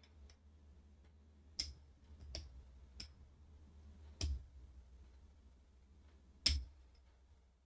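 A handful of sharp, irregular clicks and knocks from handling a Hakko desoldering gun while working collected solder out of it during cleaning; the loudest knock comes near the end.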